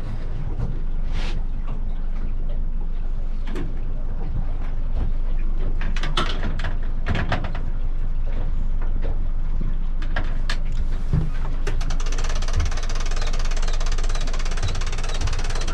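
Fishing boat's engine running steadily, with scattered clicks and knocks. A steady hiss comes in about twelve seconds in.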